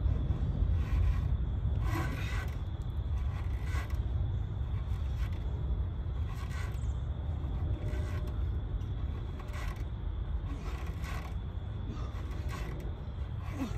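A man doing pull-ups on an outdoor bar: a short rasping sound comes with each rep, roughly every second or so, about ten in all, over a steady low rumble.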